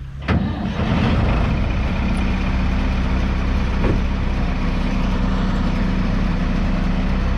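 Perkins 3.9-litre four-cylinder diesel engine of a Dronningborg Dania D1200 combine harvester picking up sharply about a third of a second in. It then runs steadily at a higher, louder speed.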